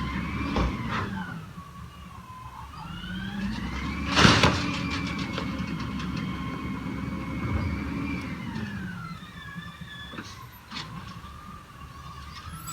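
Peterbilt 320 garbage truck with an Amrep body working its packer: the engine and hydraulics rev up about two seconds in, hold high and drop back to idle near nine seconds. A loud bang comes about four seconds in, with a few lighter clanks.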